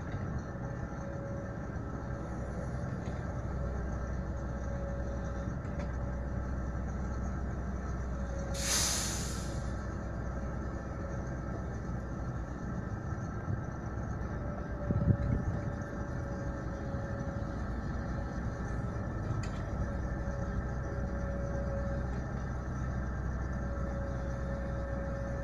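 Diesel engines of a Komatsu PW140 wheeled excavator and an idling Tatra 815 dump truck running steadily, with a steady whine over the engine drone. About nine seconds in there is a loud hiss of air lasting about a second, like an air-brake system blowing off, and about fifteen seconds in a dull thump.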